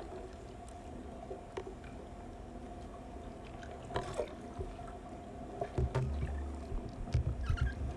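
Storm-surge floodwater pouring and dripping in a hotel stairwell, with scattered sharp clicks. Low rumbling thumps come in during the last couple of seconds.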